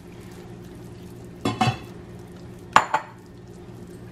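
A metal spoon clinking and scraping against a ceramic bowl of minced meat, in two short clatters about a second and a half in and near three seconds, over a steady low hum.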